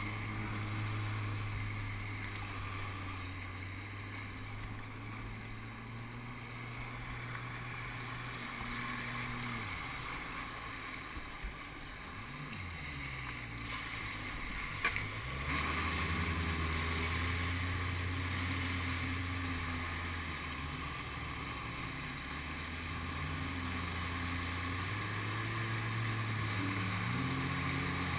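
Jet ski engine running under way, with water rushing and spraying off the hull. Its pitch falls and wavers about ten to thirteen seconds in, then rises and runs stronger from about fifteen seconds on.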